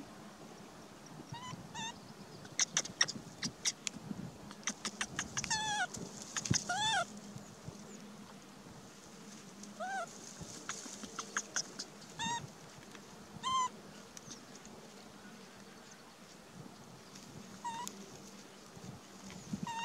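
Baby macaque giving short, squeaky calls, each rising then falling in pitch, about ten of them a few seconds apart: the infant calling out while searching for its keeper. Dry grass crackles between the calls as it crawls about.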